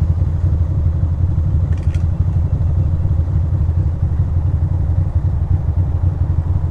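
2006 Ducati Monster 620's air-cooled L-twin idling steadily.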